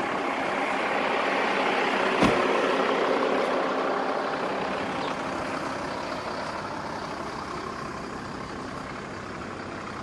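Vehicle traffic noise, swelling to a peak about two seconds in and then slowly fading, as a vehicle passes. A single short knock sounds near the peak.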